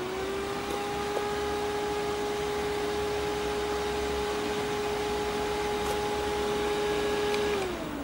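Handheld mini fan (Kangwon Electronics NM-HQF02) running: its small motor and blades give a steady whirring hum that settles to a new speed as its button is pressed, then winds down with a falling pitch near the end as it is switched down or off.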